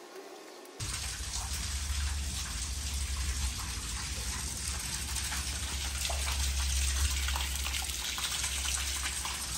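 Pond water gushing from the end of a pump's drain hose and splashing onto patio pavers, with a steady low rumble underneath. The rush starts abruptly about a second in.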